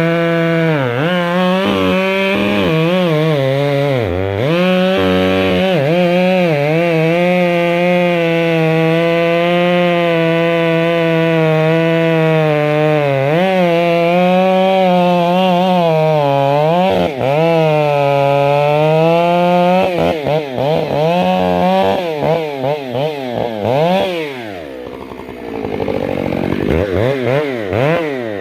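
Stihl MS 661 C two-stroke chainsaw running at high revs while cutting wood, its pitch dipping now and then. Over the last several seconds the revs rise and fall rapidly, dropping low briefly before climbing again.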